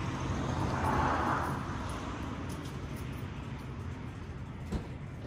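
Ford Mustang GT350's 5.2-litre flat-plane-crank V8, freshly cold-started, idling steadily through catless longtube headers, a 3-inch H-pipe and stock active mufflers with the valves closed. A brief swell of hissy noise comes about a second in, and a single click near the end.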